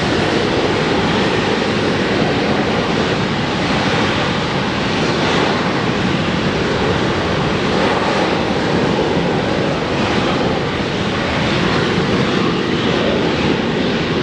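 McDonnell Douglas MD-80's rear-mounted JT8D turbofans at takeoff power during the takeoff roll: a loud, steady rush of jet noise that holds level.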